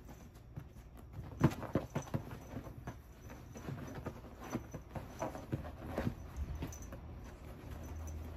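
A kitten's paws and claws tapping and scrabbling on a leather armchair as it pounces on a toy, in an irregular run of quick taps that is loudest about a second and a half in.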